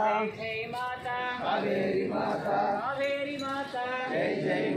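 Male voice chanting a Hindu devotional mantra during a pooja, in long held phrases that rise and fall in pitch.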